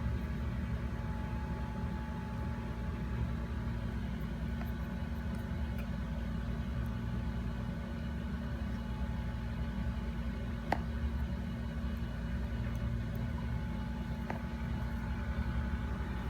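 Steady low background hum, like a running appliance or machine, with two faint clicks about eleven seconds in and again about three seconds later.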